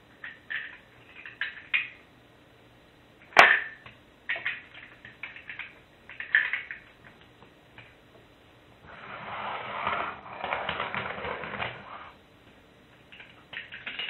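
Plastic Lego pieces clicking and rattling as the set is handled and pressed back together, with one sharp snap about three and a half seconds in and a longer stretch of rustling and rattling around ten seconds in.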